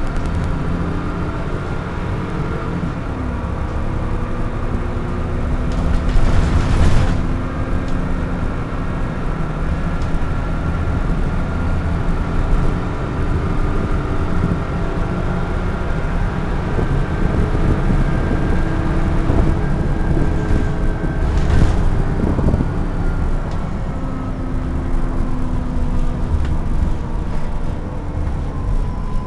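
Double-decker bus engine running, heard from inside on the upper deck, its note rising and falling as the bus drives, with two short bursts of hiss about six and twenty-one seconds in.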